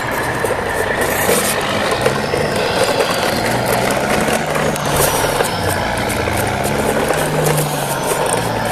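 Plastic wheels of a towed convoy of toy dump trucks rolling over concrete paving blocks: a steady rattling rumble with small clicks, under a faint low hum.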